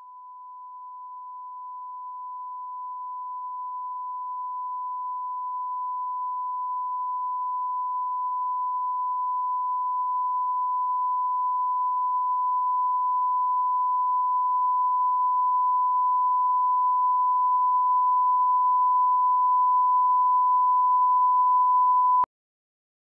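A single pure, high electronic tone held at one steady pitch, swelling slowly louder for about twenty seconds and then cutting off abruptly.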